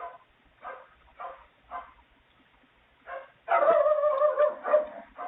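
A dog barking, picked up by a Ring doorbell camera's microphone: several short barks about half a second apart, then a louder, long drawn-out call lasting nearly two seconds from about three and a half seconds in.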